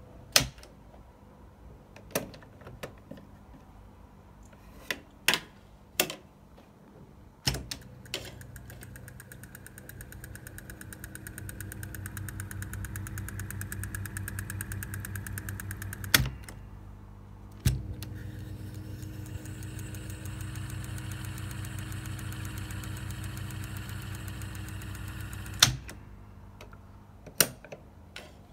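Piano-key controls of a Telefunken HiFi Studio 1M boombox's cassette deck clunking down, several times in the first seconds. Then the tape transport mechanism whirs steadily for about eight seconds until a key click stops it, starts again with another click for about eight seconds more, and ends with a clunk, followed by two more key clicks.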